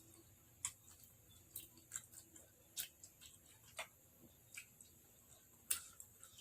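Faint, light clicks and taps of kitchen utensils, about seven of them, irregularly spaced roughly a second apart.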